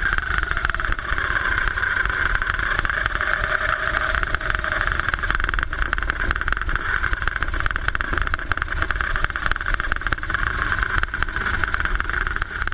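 Electric motor and gears of a radio-controlled dune buggy running under way, a steady high whine that wavers a little in pitch, heard close up from a camera mounted on the buggy. Many small clicks crackle through it, thickest in the second half.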